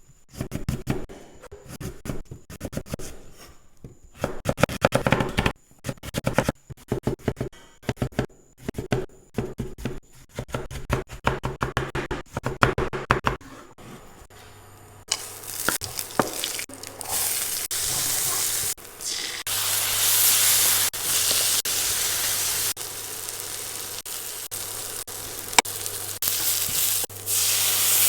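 A run of rapid, irregular knocks for about the first half. About halfway through, food starts sizzling as it fries in hot oil in a pan, with a few clicks of stirring.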